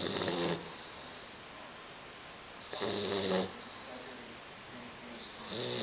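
English bulldog puppy snoring in its sleep: three snores about three seconds apart, each under a second long, a low pitched rasp with a hiss over it.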